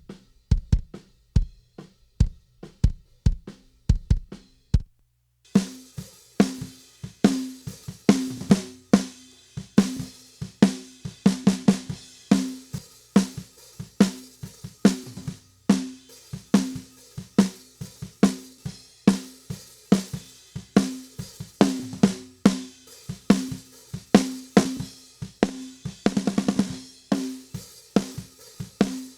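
Recorded drum kit played back through a dbx 160A compressor. The kick drum is heard alone for about the first five seconds. After a brief gap the full kit comes in with snare and hi-hat in a steady beat, with a quick snare fill near the end.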